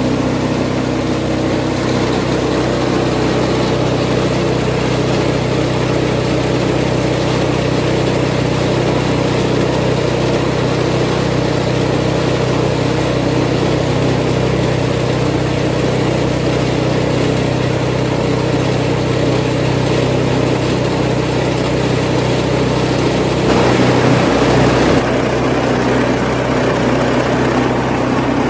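Engine-driven home-made banana-stem chopping machine running steadily, with a brief louder, harsher stretch near the end.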